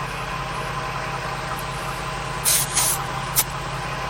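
ARB onboard air compressor inflating a tire, with the van's engine idling, giving a steady running hum. Three short hisses of air about two and a half to three and a half seconds in.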